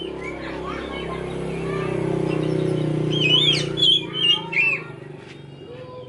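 Songbird chirping and whistling in quick curving phrases, with a loud run of warbled whistles a little past the middle, over a low hum that swells and then fades.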